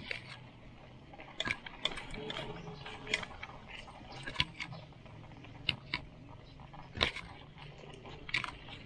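Bicycle ridden over a rough, rutted dirt road, rattling and knocking as it jolts over bumps and gravel, with irregular sharp clicks every second or so over low tyre and road noise.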